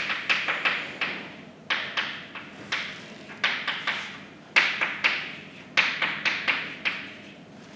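Chalk writing on a blackboard: quick runs of sharp taps and short scrapes as words are written, with brief pauses between the runs, stopping near the end.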